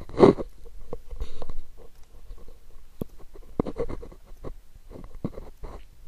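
Irregular scratching, rubbing and tapping handling noises close to the microphone, the loudest a scratchy rub just at the start, then scattered small taps and scrapes.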